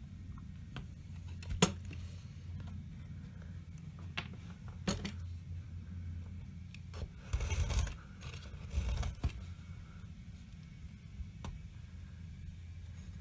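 Craft knife scraping and prising thin matchstick strips away from dried filler: scattered sharp clicks and snaps, with two short scraping rasps a little past the middle.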